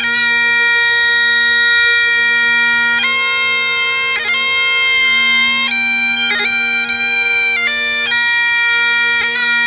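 Great Highland bagpipe playing a tune: the drones hold one steady pitch underneath while the chanter moves from note to note above them, with quick ornamental flicks at each note change.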